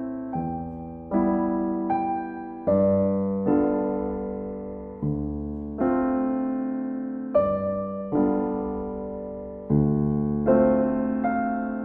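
Slow, gentle background piano music: soft chords struck about once a second, each left to fade before the next.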